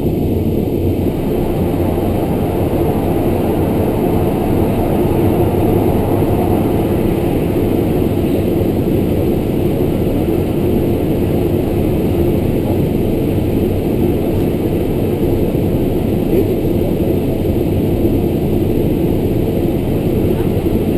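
The twin Pratt & Whitney PT6A turboprop engines and propellers of a Beechcraft King Air, running at low power while taxiing, heard from inside the cockpit as a steady, low-pitched noise.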